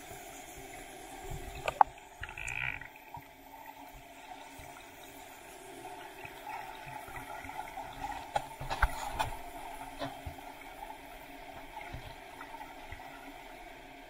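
Muffled underwater water noise heard through a camera's waterproof housing, with a few sharp clicks and knocks, the loudest about two seconds in and a cluster near nine seconds.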